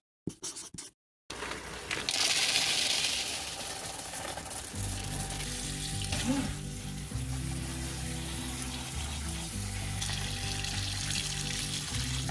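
Tap water running into a plastic colander of dry pinto beans in a sink as they are rinsed and stirred by hand. A few short scratchy sounds come before the water starts. Background music with a steady bass line comes in about five seconds in.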